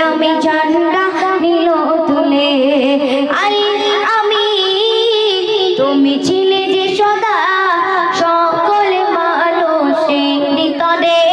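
A young female voice sings a Bengali gojol, an Islamic devotional song, through a microphone. She holds long notes that waver and glide from one pitch to the next.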